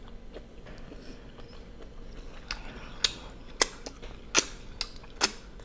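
A person eating boiled prawns close to the microphone: sharp clicks and cracks at irregular spacing, about half a dozen of them, mostly in the second half.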